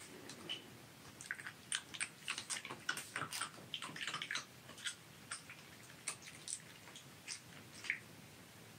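Silver fox chewing a small dried treat: a run of short, quick clicks, thickest in the first few seconds, then thinning to a few scattered ones.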